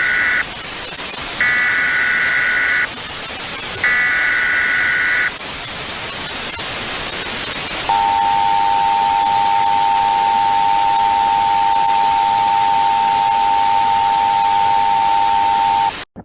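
Emergency Alert System tones over steady TV static hiss. The end of one shrill data-header burst is followed by two more of the same, each lasting about a second and a half with a short gap between them. About eight seconds in, the steady two-tone EAS attention signal starts and holds until it cuts off just before the end.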